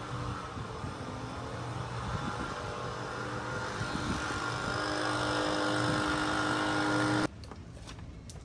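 A motor running steadily under a hiss, with a few steady hums, slowly growing louder, then cut off abruptly about seven seconds in, leaving a quieter background with a few clicks.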